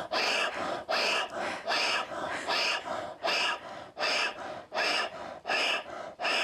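A person breathing fast and forcefully in a steady paced rhythm, a loud breath roughly every 0.8 seconds with a softer one in between, as in a guided breathing exercise.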